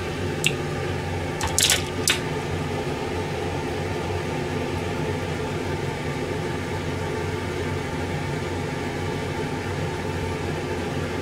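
Steady mechanical hum of a running kitchen appliance, with three or four sharp clicks in the first two seconds as boiled eggs are handled and sliced.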